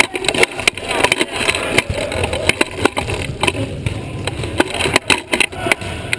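Rattling and knocking of a sports wheelchair rolling across a hardwood gym floor, picked up by a camera mounted on its frame, with frequent sharp clacks.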